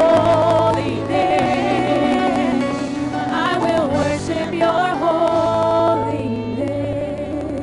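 Several women singing a worship song into microphones over keyboard accompaniment; the song tapers off and fades near the end.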